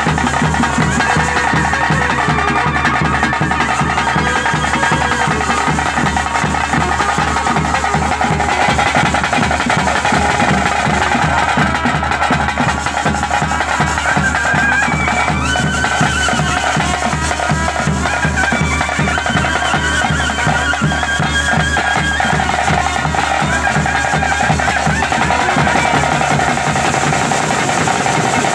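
Traditional ritual music for a Bhuta Kola: a double-reed pipe plays a wavering melody over fast, steady drumming. It runs loud and without a break.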